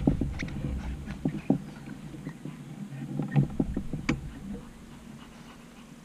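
Scattered light clicks and taps over the first four seconds or so, over a low rumble that dies away early, then quiet outdoor ambience.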